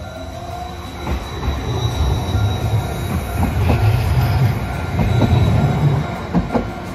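Hiroden 5000-series Green Mover low-floor tram pulling away and rolling past: a short rising whine at the start, then a building low rumble of wheels on rail with a few sharp clacks over the rail joints.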